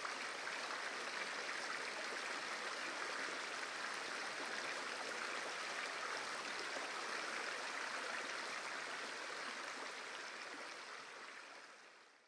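Steady rushing of water flowing over a shallow, rocky riverbed, fading out at the end.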